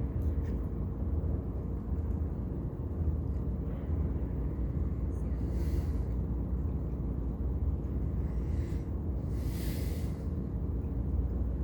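Steady low mechanical rumble and hum, with a few short hissing sounds, the loudest a little past halfway.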